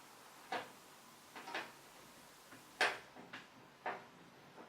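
Screwdriver working the screws of a metal hard-drive mounting bracket in a PC case: about six light clicks and taps, the loudest a little under three seconds in.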